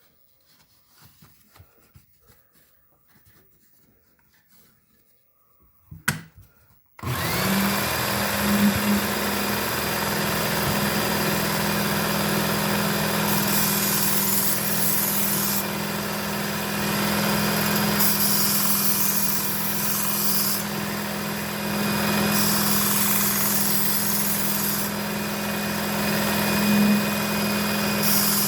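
Work Sharp Ken Onion electric belt sharpener switched on about seven seconds in, after some quiet handling, then running steadily with a motor hum. A brighter hiss comes and goes every few seconds as a Shun Damascus kitchen knife is drawn across the abrasive belt.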